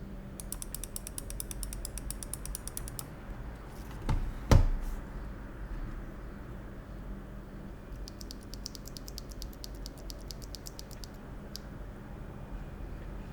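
EPOMAKER TH80 mechanical keyboard with Gateron Pro Brown switches being typed on: two quick runs of rapid keystroke clicks, with one louder thump about four and a half seconds in.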